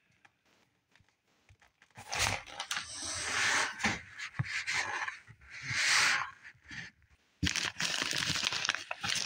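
Kraft-paper food bags and a cardboard shipping box rustling and crinkling as the bags are handled. The rustling starts about two seconds in and turns into dense crackling near the end.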